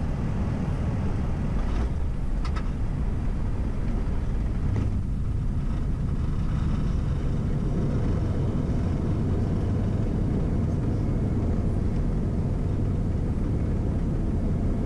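Airbus A320 rolling out on the runway after landing: a steady low rumble of the decelerating airliner, with a couple of short clicks about two seconds in.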